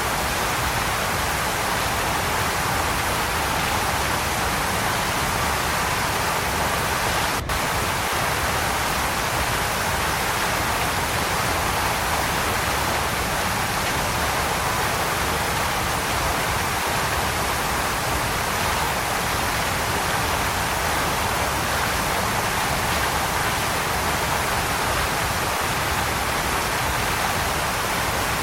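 Waterfall: a steady, unbroken rush of falling water, with a split-second break in the sound about seven and a half seconds in.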